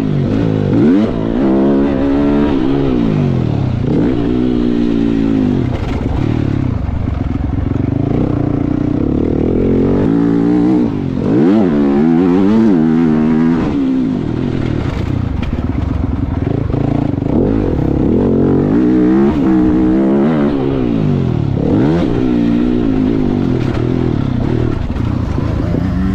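Motocross bike engine revving hard, its pitch climbing and dropping again and again as the rider opens and closes the throttle and shifts gears around the track.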